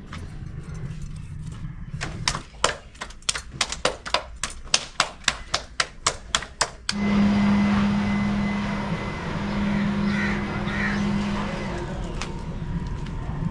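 Rhythmic slapping of roti dough patted flat between the palms, about four slaps a second. About seven seconds in it gives way to a louder steady rushing noise with a low drone.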